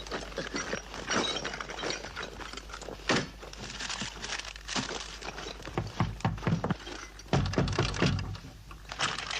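Hard objects clattering and knocking about, with a sharp bang about three seconds in and a cluster of heavy thuds near the end.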